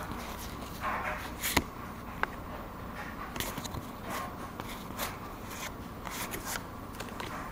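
Pokémon trading cards slid one past another by hand: irregular light scrapes and flicks of card on card, with a sharper snap about one and a half seconds in.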